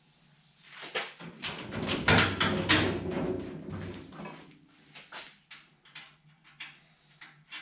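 Metal hardware and hand tools being handled: a louder stretch of rattling and scraping from about one to four seconds in, then scattered light clicks.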